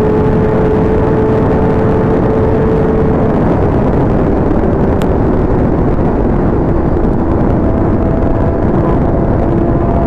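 Inline-four sport bike engine running steadily at riding speed, under a dense wash of wind and road noise. The engine note eases down slightly about three seconds in, and a second, higher engine note rises near the end.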